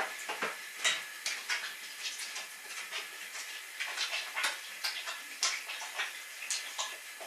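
Hands being washed under a running tap: water hissing steadily, with irregular splashes and rubs as the hands move in the stream.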